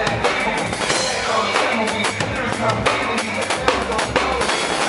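Live electronic dance music with an acoustic drum kit played over it: a steady stream of kick, snare and cymbal hits on top of dense, loud bass and synth sound.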